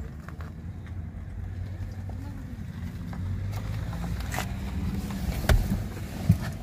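Kia XCeed's 1.5 T-GDi turbocharged four-cylinder petrol engine idling with a steady low hum. A few light clicks and two louder thumps come in near the end.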